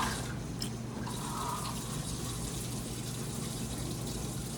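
Kitchen tap running steadily, filling a measuring cup with water.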